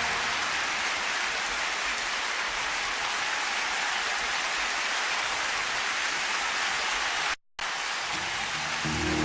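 Concert audience applauding and cheering, an even wash of noise with no music, cut by a brief dropout about seven seconds in. The band comes back in with a held chord near the end.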